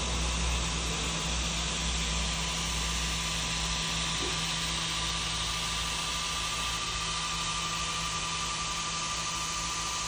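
NEJE Max 4 laser engraver running an engraving job: the cooling fans on the E80 laser head whir steadily, with a thin steady whine above a low hum.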